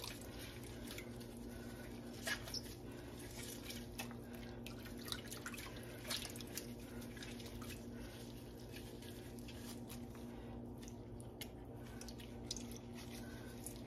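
Faint drips and small splashes of hot whey as a ball of mozzarella curd is dipped into it and worked by hand, scattered and irregular, over a steady low hum.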